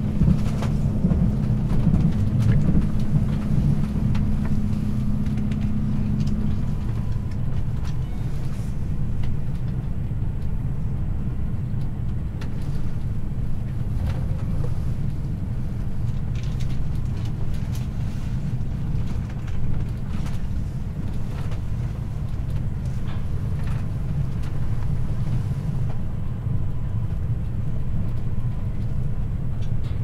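Passenger train running at speed, heard from inside the car: a steady low rumble of wheels on the rails, with a humming tone that stops about six and a half seconds in.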